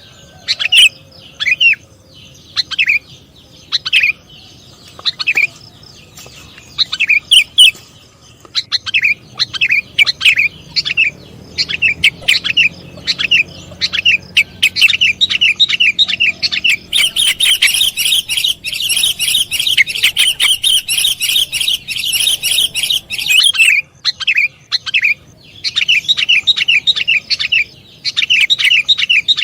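Sooty-headed bulbul (kutilang) calling: short sharp notes that drop in pitch, spaced out at first and then coming fast and close together, with a dense chattering run in the middle.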